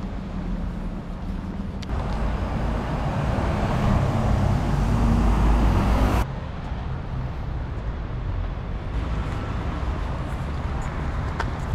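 City street traffic: a steady rumble of passing cars and buses, made of a few spliced clips. The sound changes abruptly about two seconds in and again about six seconds in, and is loudest in between.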